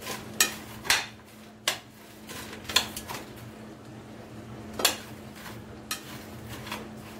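A spoon clinking and scraping against a white ceramic baking dish while stirring raw poultry, rice and vegetables. Irregular sharp knocks come roughly once a second, over a faint steady hum.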